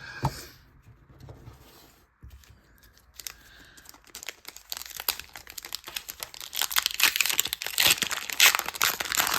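Foil Pokémon booster pack wrapper being torn open and crinkled in the hands. It is sparse at first, with a few soft clicks, then dense crackling about halfway in, loudest near the end.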